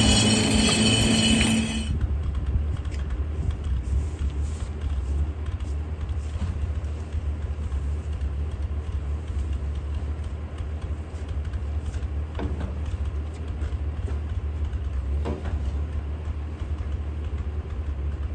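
M29 Weasel tracked carrier with its Studebaker six-cylinder engine: for the first two seconds it is loud, engine and tracks clattering as it drives; then, cut off suddenly, a steady low engine idle, with a couple of faint knocks.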